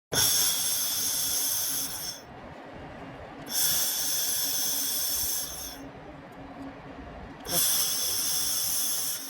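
Handheld fiber laser welder firing in three hissing bursts of about two seconds each, with a faint machine hum in the pauses between them.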